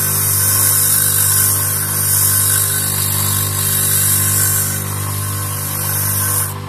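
Electric motor spinning a cork float body at a steady pitch, with sandpaper hissing against the turning cork as it is sanded to shape. The sanding hiss fades and stops shortly before the end while the motor keeps running.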